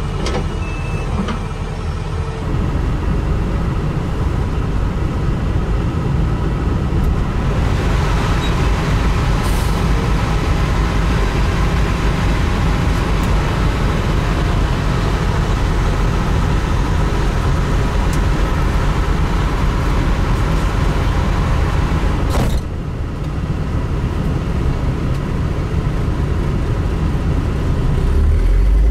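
A Hitachi 350H hydraulic excavator's diesel engine running under load as it digs and loads a dump truck, with the truck's diesel running alongside. The sound changes abruptly twice, and it gets louder and deeper near the end as the excavator swings its bucket over the truck bed.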